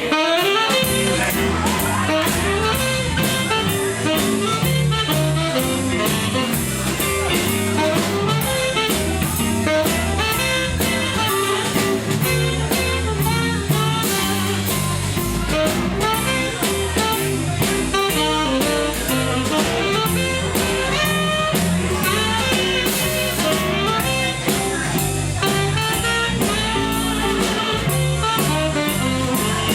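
Live blues band playing an instrumental passage, with drum kit and bass keeping a steady beat under a melodic lead instrument.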